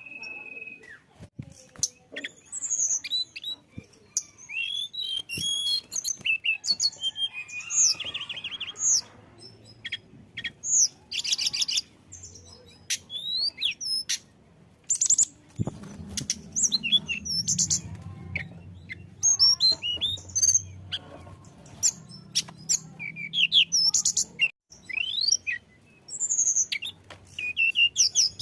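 Hill blue flycatcher (tledekan gunung) singing: rapid phrases of high chirps, whistles and sliding notes, broken by sharp clicks. A faint low hum sits underneath from about halfway to near the end.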